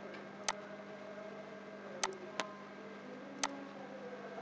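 Computer mouse clicking: four sharp single clicks, two of them close together about two seconds in, over a faint steady hum.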